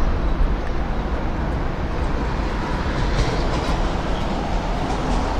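Steady low rumble of expressway traffic crossing the Ōnaruto Bridge's steel deck overhead, with a few light clicks about three seconds in.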